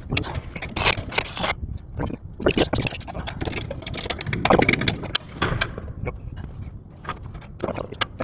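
Wind buffeting the microphone in a constant low rumble, with irregular scraping and clanking of metal mounting hardware as the antenna dish mount is worked on.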